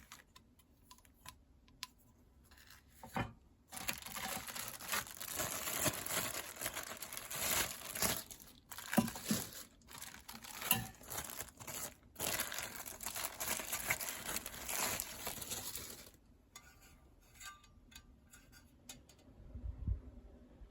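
Crinkling, rustling handling noise in irregular bursts for about twelve seconds, starting a few seconds in, with scattered small clicks. Near the end there is a soft low thump.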